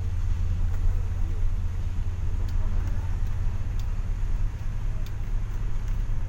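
Steady low engine and road rumble heard from inside a moving bus, with a few faint ticks.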